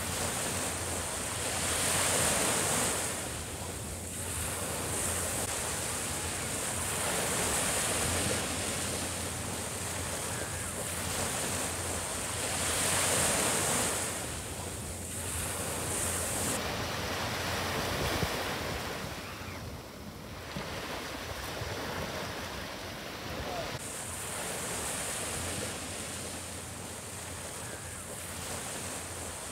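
Small sea waves breaking on a sandy beach, the surf swelling and easing every few seconds as each wave comes in and washes back.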